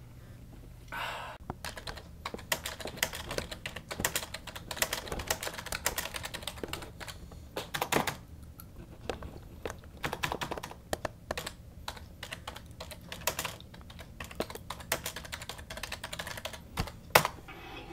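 Typing on a computer keyboard: irregular runs of key clicks with short pauses, over a faint steady hum.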